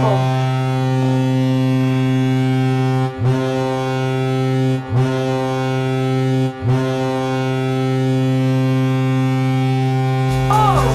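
Colorado Avalanche NHL goal horn, a low ship-style horn, sounding in four long blasts with short breaks between them; the first and last blasts are the longest. It signals an Avalanche goal.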